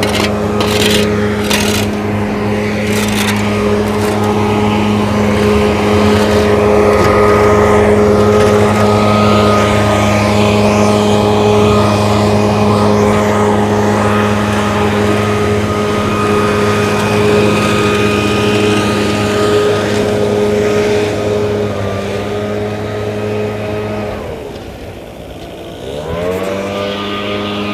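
An engine running steadily at high revs. About 24 seconds in it drops away, then revs back up a couple of seconds later. A few sharp knocks come right at the start.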